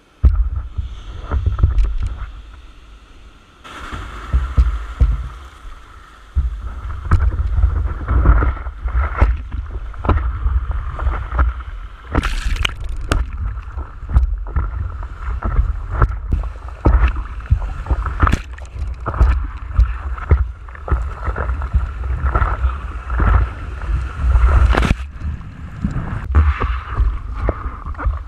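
Water splashing and sloshing against a foam surfboard and the camera mounted on its nose as the board is walked into shallow surf and paddled, with irregular splashes one after another over a heavy low rumble of water and handling on the microphone. The sound jumps up suddenly at the start as the board is picked up.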